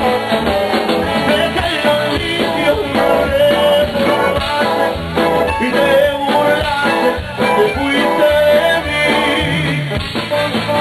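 Upbeat Tejano oldie with singing and band accompaniment.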